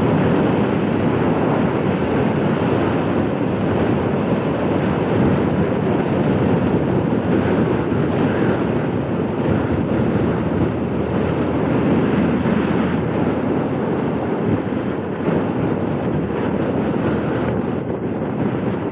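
Loud, steady wind rushing and buffeting over the microphone while riding a motorcycle through a desert sandstorm.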